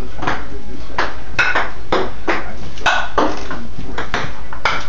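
Ping-pong ball being rallied in a hallway, clicking off the paddles and bouncing on the hardwood floor: a string of sharp clicks, about two a second, often in quick pairs.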